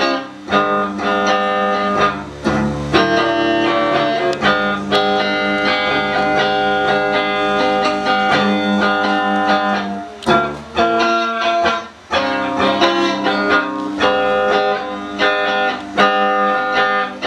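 Instrumental music led by plucked guitar, with a run of sustained notes and chords.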